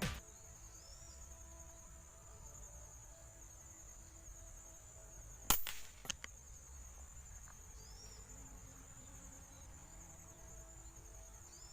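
Insects chirring steadily in a rice field, with faint short bird chirps. About five and a half seconds in, a single sharp air rifle shot firing a pellet, followed by a smaller click.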